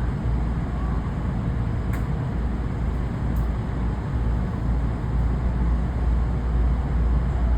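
Steady low rumble of a JR electric train, with a couple of faint clicks a few seconds in.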